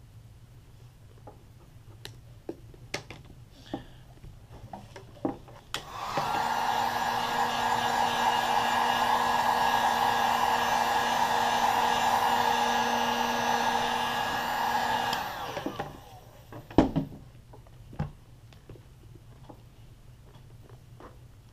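A few light snips of small scissors trimming the film, then a 1500-watt heat gun switched on for about ten seconds, blowing steadily with a whine as it heats the plastic sole-protector film to make it adhere, and winding down as it is switched off. A couple of sharp knocks follow shortly after.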